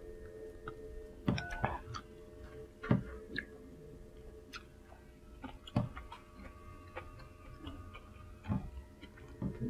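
Someone eating ramen: a handful of short slurps and clicks of chopsticks against the bowl, spaced a second or more apart, over a faint steady hum.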